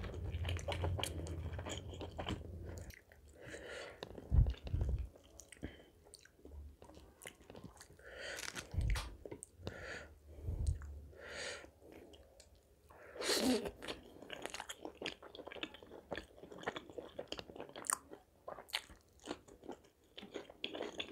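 A person chewing and biting butter chicken with butter naan, close to the microphone, in irregular wet mouth sounds and clicks with a few louder bites.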